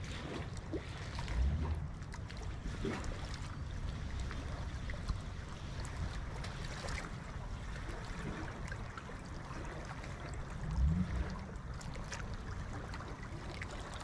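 Fast-flowing river water rushing steadily, with wind buffeting the microphone in two low rumbles, about a second and a half in and again near eleven seconds.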